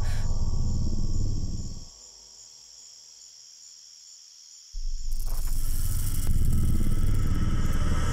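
Deep rumbling sci-fi drone that cuts out about two seconds in, leaving only a faint, high, evenly pulsing chirp. The drone comes back suddenly a little before the five-second mark, now with a high hiss over it.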